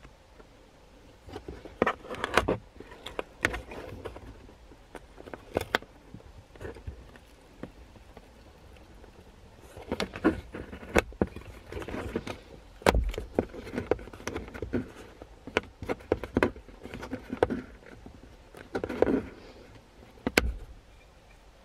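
Irregular clicks, taps and light rattles of hard plastic and metal parts being handled as an old Bulletpoint ball-type dash mount is unscrewed and lifted off a Jeep dash tray. There is a quieter stretch about a third of the way in.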